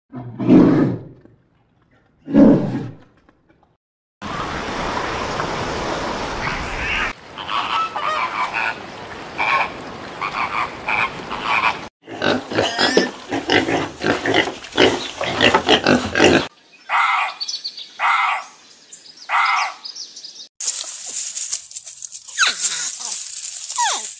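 A run of short, different animal calls cut one after another: two deep, loud grunt-like calls at the start, then a pause, a stretch of overlapping calls and noise, about four evenly spaced calls, and a hissy sound with a falling call near the end.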